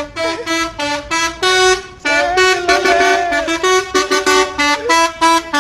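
Truck's telolet horn, a multi-tone air horn, playing a jaunty melody: a quick run of short, loud, stepped notes with chords of several pitches, broken by brief gaps.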